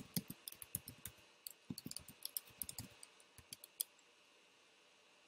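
Typing on a computer keyboard: a quick, irregular run of key clicks that stops a little under four seconds in.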